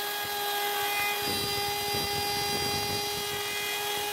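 Plunge router running at a steady whine, working a mortise in a wooden beam.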